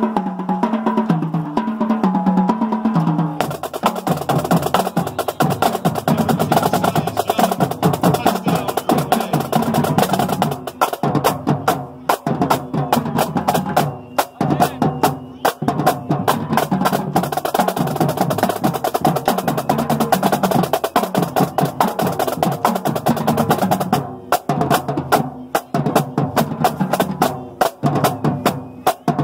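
High school marching band drumline playing a fast percussion feature. It opens with a run of low pitched notes for about three seconds, then goes into dense, rapid snare-drum patterns and rolls.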